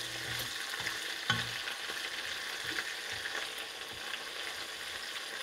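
Squid and vegetable fritters deep-frying in hot oil in a wok: a steady sizzling crackle as chopsticks stir them, with one light knock about a second in.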